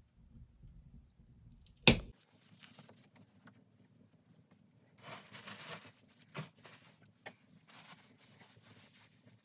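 Handling noises: one sharp knock about two seconds in, then rustling and scraping with a few lighter knocks.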